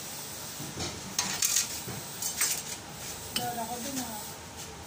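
Steel fittings and tools clinking against a diesel injection pump on a test bench as parts are handled and fitted: several sharp metal clinks, spaced irregularly.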